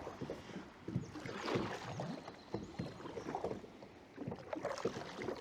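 Kayak paddle strokes splashing and swishing through the water, irregular and uneven.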